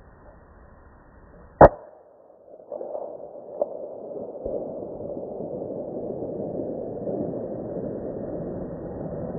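.243 rifle fires a single shot about a second and a half in, recorded through the scope's own microphone and sounding muffled. A steady rushing noise sets in about a second after the shot.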